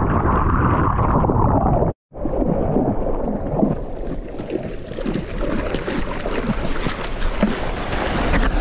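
Muffled rush of churning seawater around a surfboard in whitewater, broken off by a brief gap of silence about two seconds in. Then water splashes and sloshes against the board as it moves through the sea.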